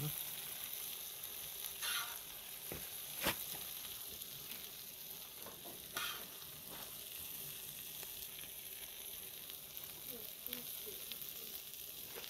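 Beef rump steaks and sliced peppers and onions sizzling in oil on a wide disc pan (talandara), a steady hiss, with a few sharp clicks of metal tongs against the pan.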